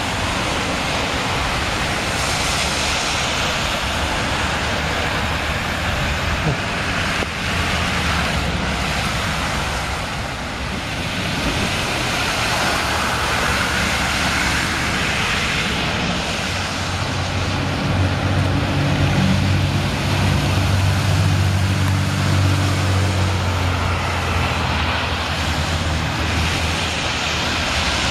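Cars and pickups driving through deep floodwater on a road, tyres hissing and throwing up spray in a steady rush of water noise. An engine hum swells for several seconds just past the middle as a vehicle passes close, then fades.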